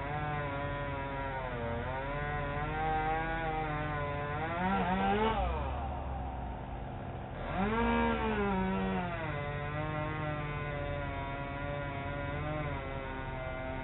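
Chainsaw engine running under load, its pitch rising and falling as it cuts; it eases off for about a second around the middle, then revs back up. Heard through a doorbell camera's narrow-band microphone.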